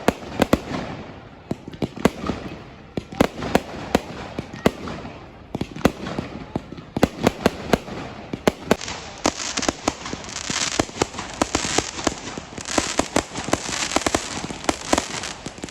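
Fireworks going off in a rapid, irregular run of sharp bangs. A dense hissing crackle fills in from about halfway on.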